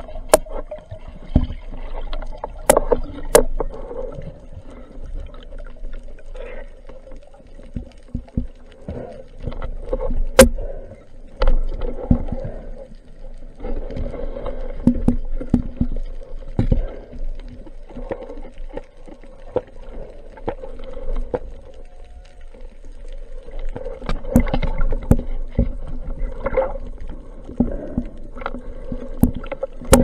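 Underwater noise picked up by a camera in a waterproof housing on a speargun: moving water with a steady low drone and scattered sharp clicks, the loudest about ten seconds in.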